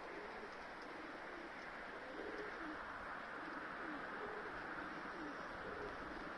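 Domestic pigeons cooing, repeated low coos about once a second, over a steady background hiss.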